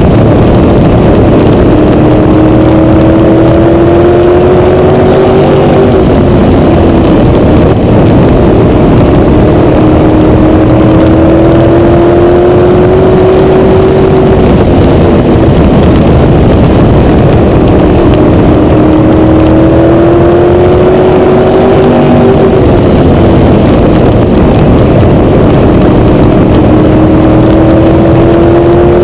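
Onboard sound of a PASS Modified race car's V8 engine at racing speed on a short oval. Its pitch rises steadily down each straight and drops sharply as the driver lifts for the turns, three times in this stretch, about every eight seconds. Loud throughout.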